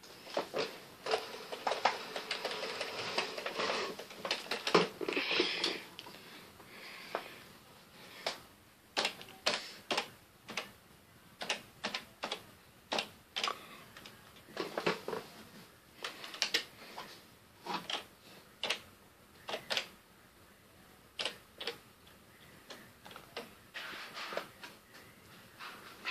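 Computer keyboard keys tapped in irregular single strokes and short clusters, with pauses between them. A softer rustling noise runs under the taps over roughly the first six seconds.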